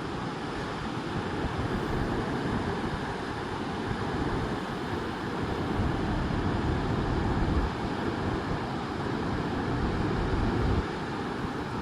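Pacific Ocean surf, a continuous wash of breaking waves, with wind buffeting the microphone. The low rumble swells through the middle and drops off suddenly near the end.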